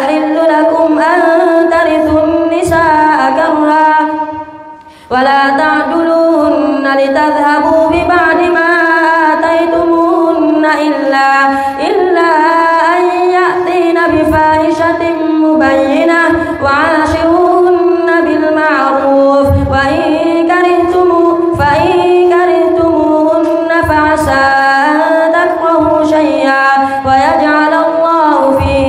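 A boy imam's melodic Quran recitation through a microphone: one high voice holding long, ornamented notes, with a breath pause about four seconds in.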